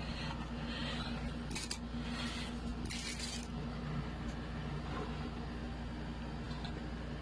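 Packaging and parts being handled while unboxing a mouse and keyboard kit: three short rustling, scraping sounds about one and a half to three and a half seconds in, over a steady low electrical hum.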